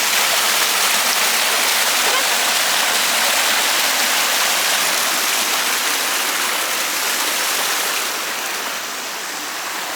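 Waterfall rushing: a loud, steady hiss of falling water that eases slightly near the end.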